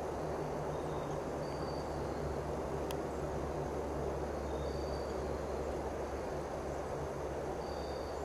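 Steady background noise over a low hum. A single sharp click comes about three seconds in, and faint short high tones recur every three seconds or so.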